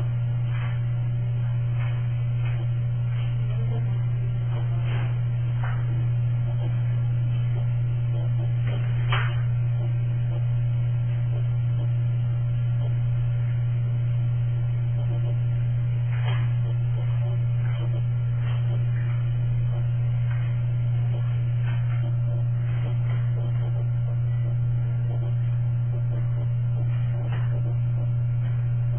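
Steady low electrical mains hum, with a few faint clicks here and there.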